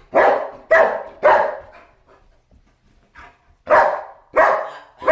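German Shepherd dog barking: three quick barks, a pause of about two seconds, then another run of three barks.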